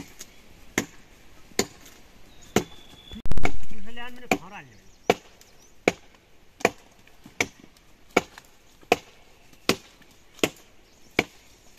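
Steady chopping, a blade striking wood in even strokes about four every three seconds. About a third of the way in there is one heavy low thump, followed by a brief wavering call.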